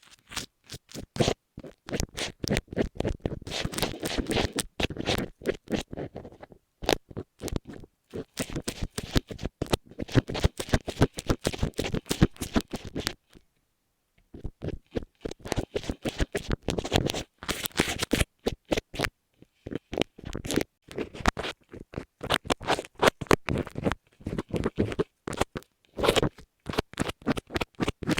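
Rapid runs of close-up scratching and rubbing strokes right against an earphone microphone, with a short pause about halfway through.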